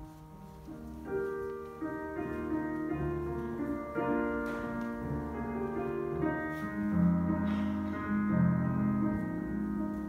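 Electronic church organ playing the instrumental introduction to a worship song, with slow, held chords starting about a second in.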